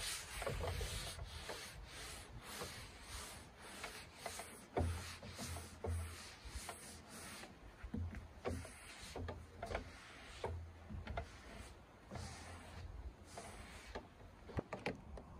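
Scouring sponge's abrasive pad scrubbed back and forth over a wet wooden tabletop in quick repeated rough strokes, with dull low knocks now and then.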